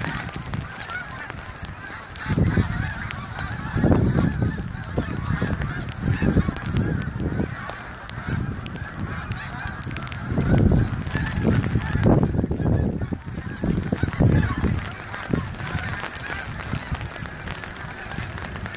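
A large flock of geese honking continuously overhead, many calls overlapping into a steady chatter. Low rumbling gusts of wind buffet the microphone in bursts through the middle.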